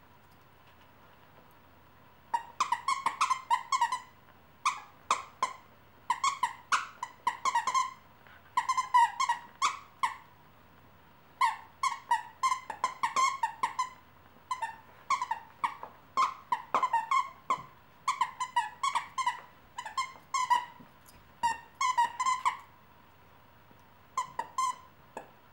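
Squeaky dog toy squeaking over and over in quick clusters as two dogs chew on it, starting about two seconds in.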